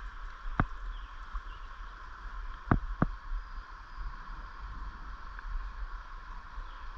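River water rushing steadily, with a few sharp clicks or knocks, the loudest near the middle.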